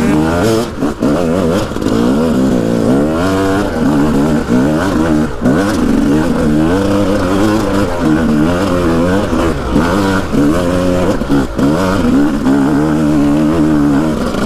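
Yamaha YZ250 two-stroke dirt bike engine under load on a hill climb, its pitch rising and falling over and over with the throttle. The sound drops briefly several times as the throttle is rolled off.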